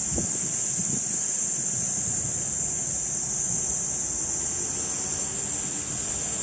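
Loud, steady, high-pitched drone of summer insects. A brief low thump comes just after the start.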